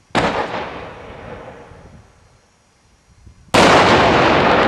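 A 6-inch aerial firework shell fired upside down in its mortar. First a sharp bang that fades over about two seconds, then, about three and a half seconds in, the shell bursts at ground level with a much louder blast and a long fading tail: the shell goes off on the ground instead of in the air.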